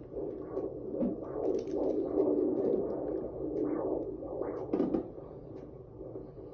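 Fetal heartbeat at 18 weeks of pregnancy played through the ultrasound machine's Doppler speaker, a continuous whooshing.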